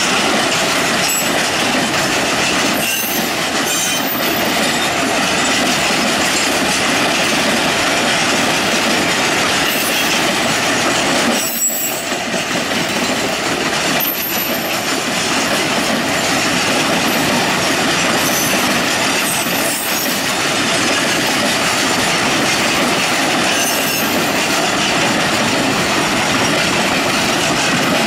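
Log-loaded flatcars of a long freight train rolling past: a steady, loud noise of steel wheels on rail, with short, high wheel squeals now and then.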